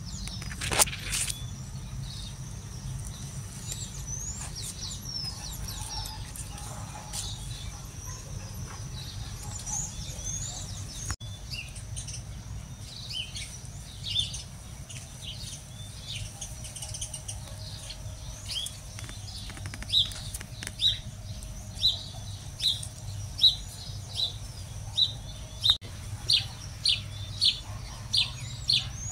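Small birds chirping, with short high chirps scattered at first and then coming in a quick, regular series of about one to two a second near the end, over a steady low rumble.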